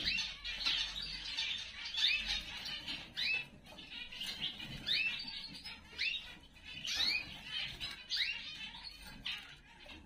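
Cage birds in an aviary chirping: short upward-sweeping calls, often in pairs, every second or so, over a busy background of softer twittering.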